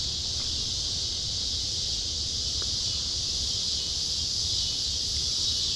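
Steady, even chorus of insects, a high continuous buzz, over a low rumble.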